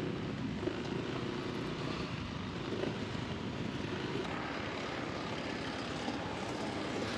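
Motor scooter engine running steadily under way, with road noise.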